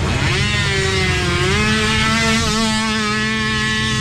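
Small youth ATV engine revving up as the quad pulls away. Its note rises quickly in the first second, then holds at high revs, stepping up once more about halfway through.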